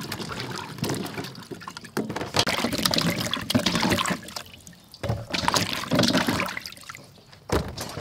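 Hands sloshing and splashing peeled green banana pieces in a steel basin of water, rinsing them to wash off the sap, in several bouts with short pauses between.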